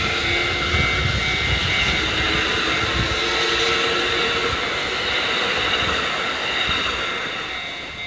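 A Kintetsu electric commuter train runs past close by, its wheels rumbling on the rails, while a level crossing's warning bell rings steadily. The train noise fades near the end as it pulls away.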